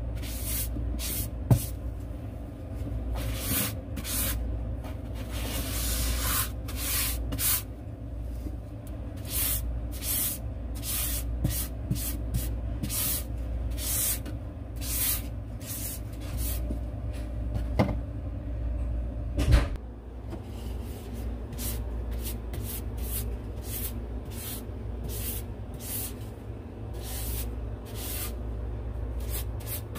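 Paintbrush strokes: short brushing swishes of bristles over a painted surface, repeating irregularly about once a second. A few sharp knocks, one near the start and two about two-thirds of the way through, over a steady low hum.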